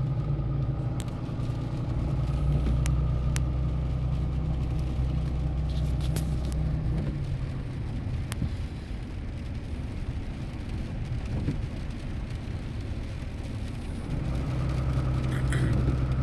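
Car engine running with road noise, a steady low hum that turns rougher through the middle and steadies again near the end, with a few sharp clicks scattered through.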